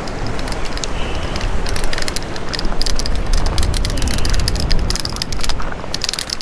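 Rough surf washing against jetty rocks with wind buffeting the microphone as a steady low rumble. A rapid run of sharp clicks and scrapes sits on top from about a second and a half in until near the end.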